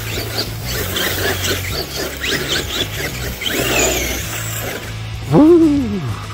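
Rock background music with a steady bass line. About five seconds in, the RC crawler's ARRMA 3S brushless motor revs up and back down, heard as one loud whine that rises and then falls in pitch.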